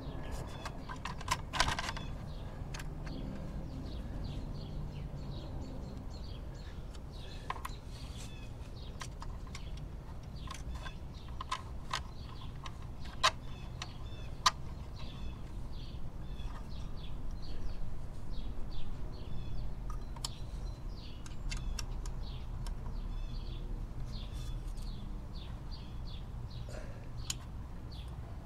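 Small metallic clicks and ticks of a hex key turning screws into a plastic radiator and engine guard, with a few sharper clicks. Birds chirp in the background.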